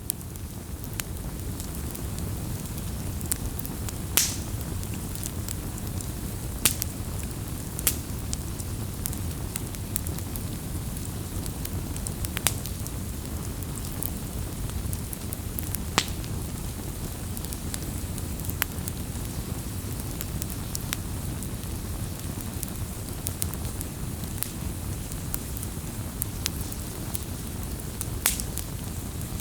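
Campfire crackling: a steady low rush of burning wood with scattered sharp pops and snaps, a few of them louder than the rest.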